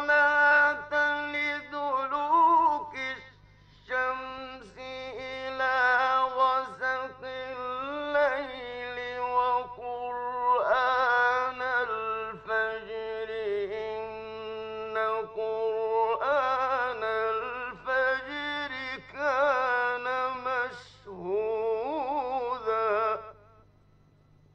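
A solo male voice chanting the Quran in melodic tajwid style. Long held notes with wavering, ornamented pitch come in several phrases separated by brief pauses, and the voice stops about a second before the end. A faint steady low hum runs underneath.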